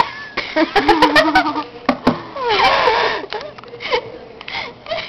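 A girl's voice making wavering, wordless vocal noises in two stretches, with a few sharp clicks in between.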